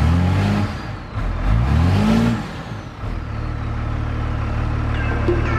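1991 Dodge Ram 250's 12-valve Cummins 5.9-litre inline-six turbo diesel idling, heard from inside the cab. It is revved twice in quick succession, the pitch rising and falling back each time, then settles to a steady idle.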